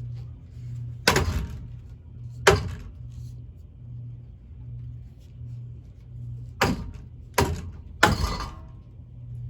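Spinning ceiling fan with a steady low hum, its wooden blades struck hard five times by a hockey stick: two sharp cracks a little over a second apart early on, then three more in quick succession near the end.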